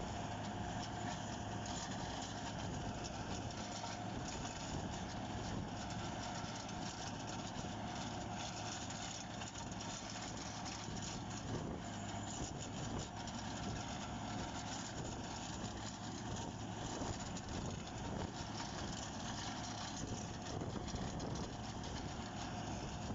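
Motor grader's diesel engine running steadily under load as it drags its rear ripper teeth through the hard base of an old road.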